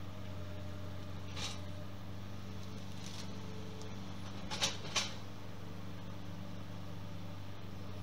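A steady low mechanical hum, with a few short sharp clicks, two of them close together about halfway through.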